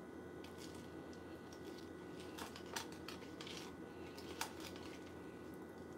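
Faint, scattered clicks and taps of a metal spoon against a clear plastic cup as cereal is stirred, over a low steady room hum.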